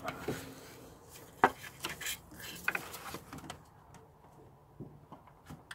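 Plastic electrical plug on an alternator being squeezed and worked loose by hand, with scattered small plastic clicks and knocks; the sharpest click comes about a second and a half in.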